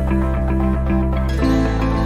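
Instrumental background music with sustained chords and a chord change about one and a half seconds in.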